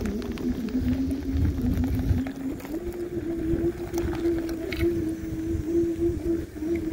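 Electric bike motor whining at a steady pitch that steps up about three seconds in as the bike picks up speed, over an uneven low rumble of the bike riding over the rough dirt path.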